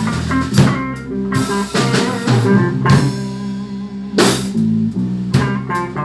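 Blues band playing without vocals: guitar phrases over bass guitar and drum kit, with cymbal crashes at the start and about four seconds in.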